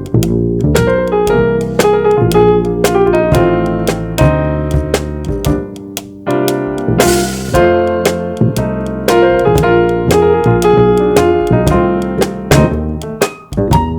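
Jazz trio playing: keyboard chords and melody with a piano sound, over a bass line and light drums, with a cymbal crash about halfway through.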